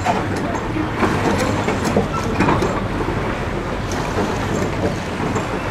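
Outdoor river ambience dominated by wind noise on the microphone, with a low steady hum underneath.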